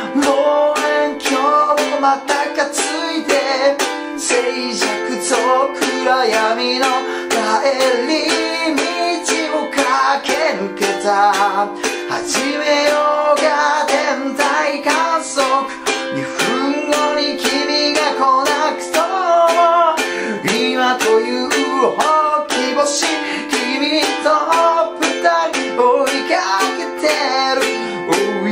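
A man singing in Japanese while strumming chords on a ukulele in a steady rhythm.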